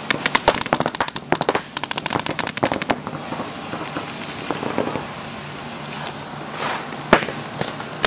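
Paintball markers firing rapid strings of shots, sharp pops several to the second for the first three seconds, then only scattered pops, then another quick string near the end.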